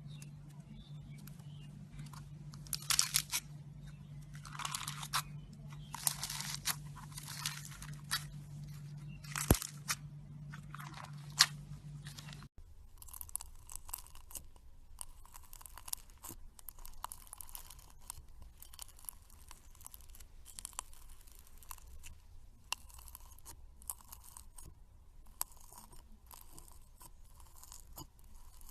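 Slime being squeezed and poked by hand, crunching and crackling in irregular bursts. About twelve seconds in, a low steady hum drops out and the crackling turns lighter and quicker.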